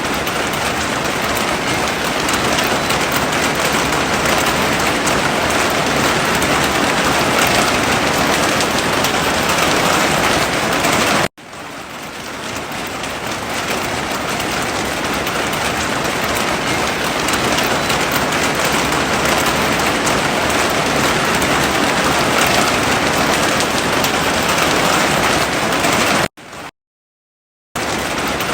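Heavy rain falling steadily in a dense, even hiss. It cuts out abruptly about eleven seconds in and fades back up, then drops to silence for about a second near the end before resuming.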